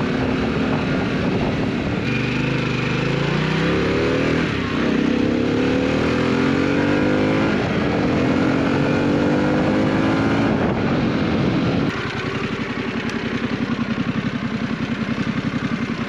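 Harley-Davidson Pan America's V-twin running through a Scorpion aftermarket exhaust under hard acceleration. The engine note climbs, drops at each gear change and climbs again a few times. After about twelve seconds it falls back to a lower, evenly pulsing beat.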